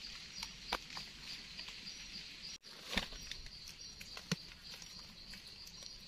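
Faint scrapes, snips and clicks of a knife trimming a bolete mushroom's stem by hand, with leaf litter rustling, over a steady high insect drone.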